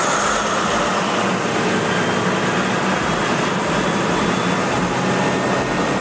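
Caterpillar C175 20-cylinder diesel generator set running, a loud, steady mechanical din.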